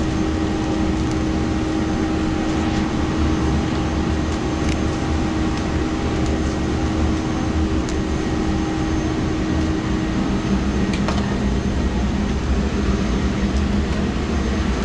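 Steady drone of air-handling or refrigeration machinery with a constant hum, and a few faint clicks and knocks.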